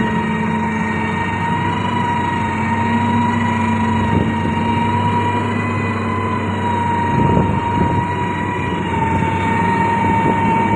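Diesel engine of a heavy road-construction machine running steadily with a constant high-pitched whine over its low drone, and a few brief knocks about seven seconds in.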